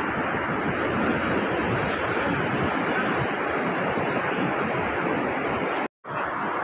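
Steady, even noise of ocean surf breaking on a beach. The sound cuts out for an instant near the end, then resumes.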